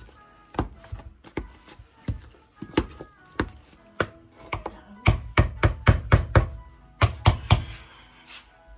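Potato masher pounding potatoes in a metal pot: a run of dull knocks, about two a second at first, then quicker, about four a second, from about five seconds in, stopping shortly before the end. Faint background music underneath.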